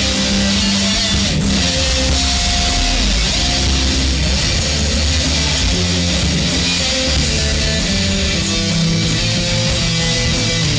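Live band playing loud with electric guitars and a drum kit.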